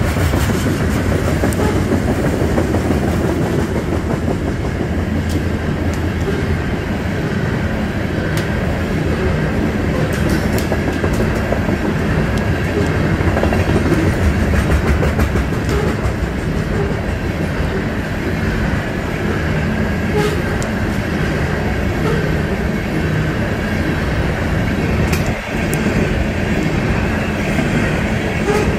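Coal train's hopper cars rolling past: a steady rumble of steel wheels on the rails, with occasional clacks.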